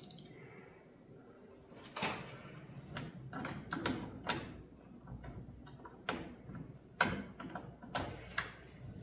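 Irregular metallic clinks and knocks of hand wrenches being handled and tried on a bolt, starting about two seconds in, with the sharpest knock about seven seconds in.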